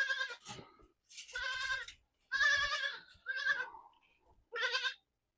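Goats bleating: about five separate calls one after another, each under a second long.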